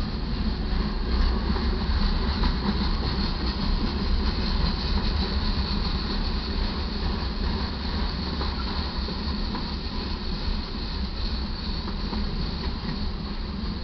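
Freight cars of a slow-moving manifest train rolling past: a steady rumble of steel wheels on the rails.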